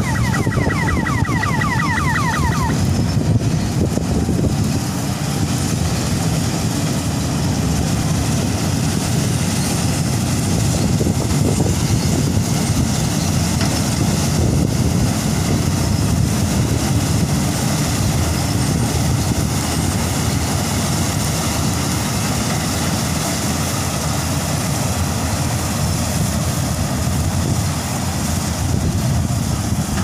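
Sunshine 1100 combine harvester running steadily as it cuts wheat, a continuous low engine rumble with machinery noise over it.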